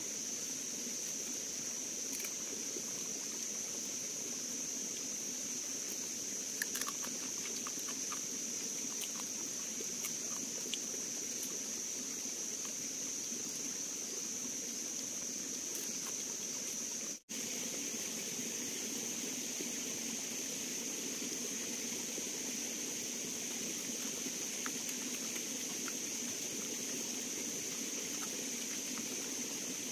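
Steady forest ambience: a continuous high-pitched drone over an even low hiss, with a few faint clicks about seven seconds in. The sound drops out for an instant just past halfway.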